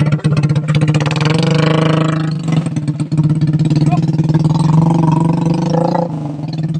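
Motorbike engine running and being revved up and down, over its steady low hum.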